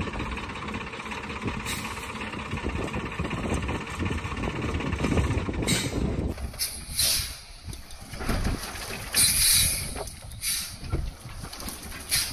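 Tata 10-wheeler truck's diesel engine running steadily, then more unevenly in the second half, with a short hiss about nine seconds in.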